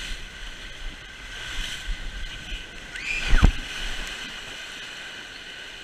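Water rushing along a water slide under an inflatable raft tube, with a short high cry and a loud thump and splash a little over three seconds in as the tube lands in the splash pool, then steady sloshing water.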